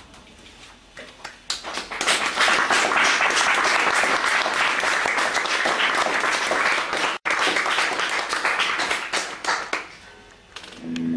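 Small audience applauding, building up about two seconds in and dying away near the end, where an electric guitar begins to play.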